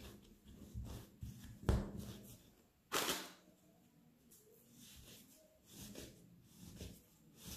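Hands kneading and rolling bread dough on a floured steel worktop: soft thumps and rubbing as the dough is pressed and turned, with a sharper knock about three seconds in.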